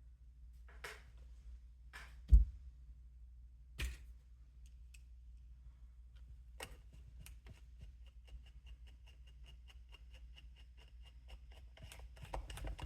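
Hand work on RC truck parts at a workbench: scattered clicks and knocks, one sharper knock a couple of seconds in, then a run of rapid, evenly spaced ticks for about three seconds.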